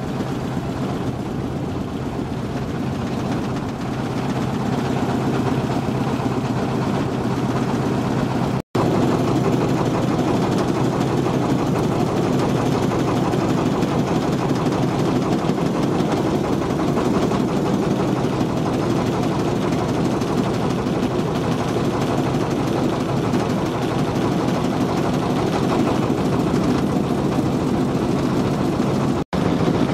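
Boat engine running at a steady pace, an even low drone. It breaks off for an instant about nine seconds in and again near the end.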